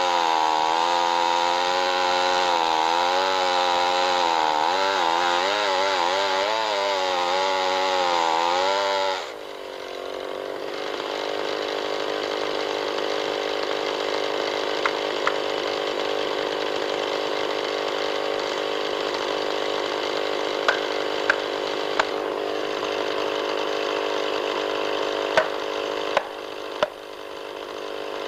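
Chainsaw cutting into a big tree trunk under load, its engine pitch wavering, then dropping suddenly to a steady idle about nine seconds in as the saw is left sitting in the cut. Over the idle come a scattering of sharp knocks of an axe driving felling wedges into the back cut.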